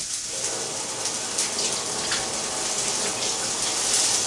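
Kitchen tap running into the sink, a steady splashing of water while hands are washed under it.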